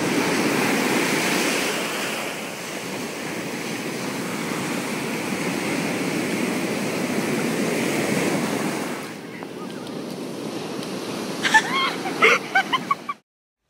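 Shallow ocean surf rushing and foaming around feet, a steady wash that eases off after about nine seconds. Near the end come a few short voice sounds.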